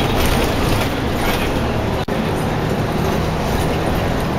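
Tour bus engine and road noise heard from inside the passenger cabin, a steady low rumble. The sound cuts out for an instant about two seconds in.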